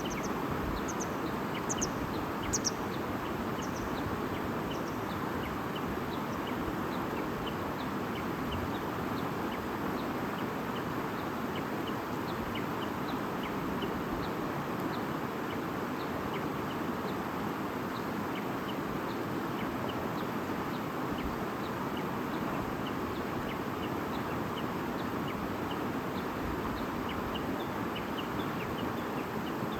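Stream babbling steadily, with small birds chirping over it; a few louder, high chirps come in the first few seconds, then short faint chirps continue throughout.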